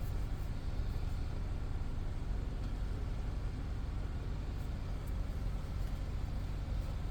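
Steady low rumble with an even hiss, like a motor or engine running in the background, with a few faint ticks and no distinct event.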